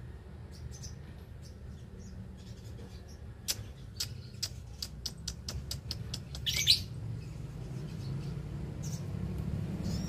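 Lovebirds chirping: a short sharp chirp about two-thirds through, with faint chirps scattered around it. Before it comes a quick run of sharp clicks, about four a second, all over a low steady hum.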